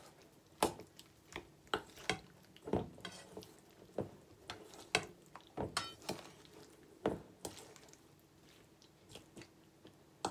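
Wooden spatula turning sautéed mushrooms in a metal mixing bowl: irregular soft knocks and scrapes of wood against the metal, with the mushrooms shuffling, thinning out over the last couple of seconds.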